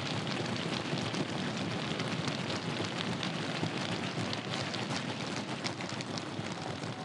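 Crowd of spectators clapping and cheering: a steady wash of noise with many sharp claps through it.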